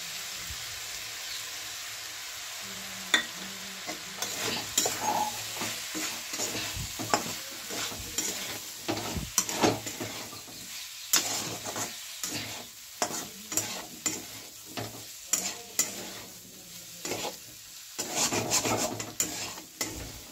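Spatula scraping and stirring potato and cauliflower in a kadhai over a steady sizzle of frying, as gram flour is worked into the vegetables. The sizzle runs alone at first. About three seconds in, stirring strokes begin and repeat roughly once or twice a second.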